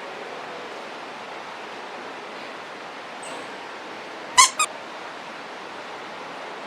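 Two quick, sharp squeaks a fraction of a second apart, over a steady rushing background noise.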